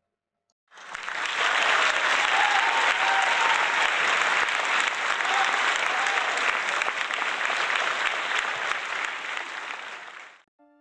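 Crowd applause, starting abruptly about a second in, holding steady, and fading out just before the end.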